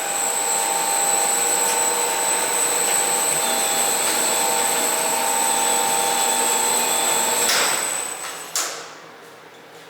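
Komman Altay Roller automatic carpet washing machine running, a steady mechanical hum with a high whine, then dying away about eight seconds in after a couple of brief knocks.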